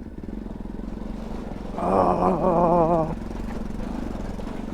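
Single-cylinder engine of a Bajaj Pulsar NS200 motorcycle running at low, steady revs. About two seconds in, a person's drawn-out, wavering voice is heard over it for about a second.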